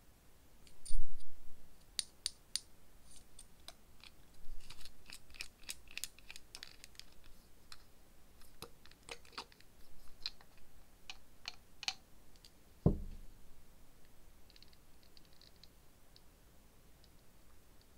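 Close handling of a small dropper bottle: long fingernails clicking and tapping against the bottle, its plastic cap and the glass dropper in a scatter of short sharp clicks, with a single dull knock about two-thirds of the way through.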